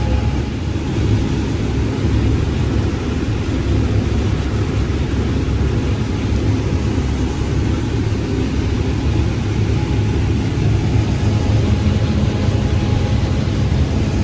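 Combine harvester running steadily while cutting corn, a constant low engine and machinery drone.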